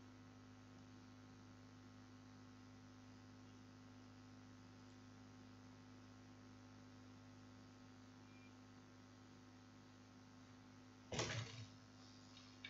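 Near silence with a steady low electrical hum on the recording, broken once about 11 seconds in by a brief noisy burst.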